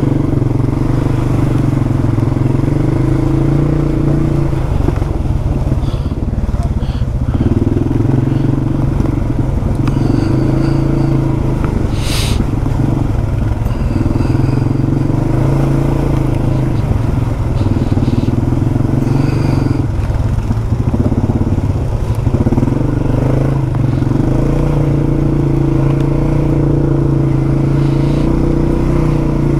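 A 2021 Polaris 570's single-cylinder engine running steadily on the trail, its note shifting up and down every few seconds. A few short knocks are heard, the sharpest about twelve seconds in.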